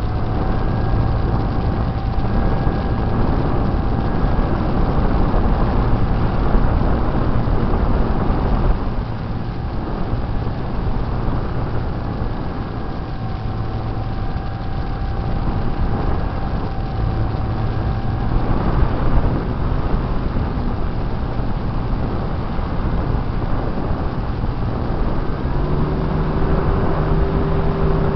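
RC model airplane's motor and propeller running at steady cruise, heard from on board, a whine over a heavy rush of wind across the microphone. Near the end the whine drops to a lower pitch as the throttle is eased back.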